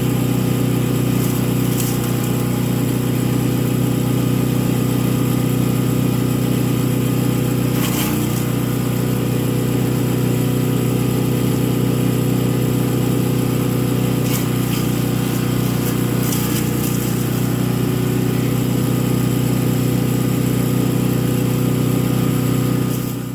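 Champion 224cc wood chipper's single-cylinder engine running steadily, with a few brief sharp noises over it. It cuts off abruptly near the end.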